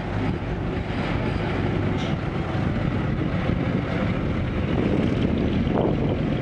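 Diesel engines of loaded six-wheel dump trucks running steadily, a continuous low rumble.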